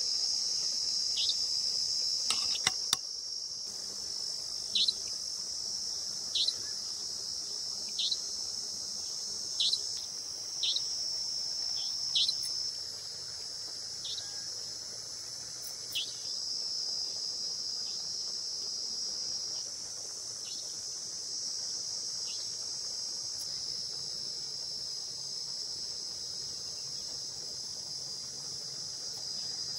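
Crickets singing in a steady, high, unbroken chorus. A separate short, falling chirp repeats every second or two through the first two-thirds, and a few sharp clicks come two to three seconds in.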